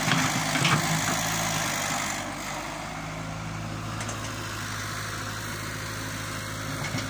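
Excavator's diesel engine running steadily while the bucket digs. A few short knocks sound in the first two seconds, and the sound drops a little in level after about two seconds.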